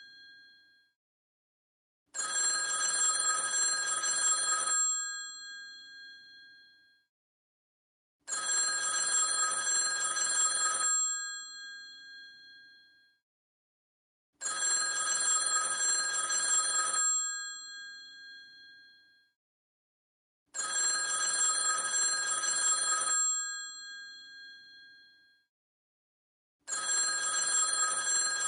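Old telephone's mechanical bell ringing in a repeating cadence: five rings of about two and a half seconds, one every six seconds, each fading out afterwards.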